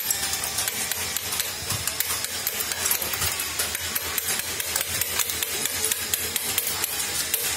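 Hammer driving a chisel into a granite pillar turning on a lathe, chipping the stone in quick, even blows several times a second, with a steady machine hum underneath.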